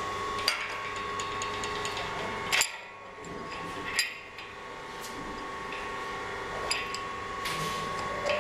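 Stainless steel parts of a tubular centrifuge clinking and knocking as they are handled and fitted together by hand: a handful of sharp metal clinks, the loudest about two and a half and four seconds in, over a steady background hum.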